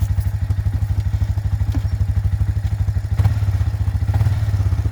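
Arctic Cat four-wheeler's engine idling with an even pulse, its note growing fuller about three seconds in, with a couple of clattering knocks near the end as the trailer is worked onto the hitch.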